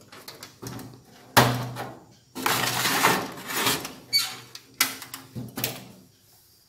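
Metal door of a small gas oven unlatched and swung open with a clank, then metal baking trays scraping and clattering on the oven racks. It ends with sharp clicks as the door is shut and latched.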